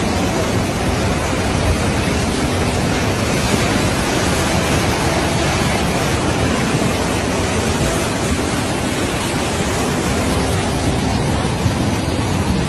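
Storm noise: a loud, steady rush of wind and water with no break, typical of severe-weather footage.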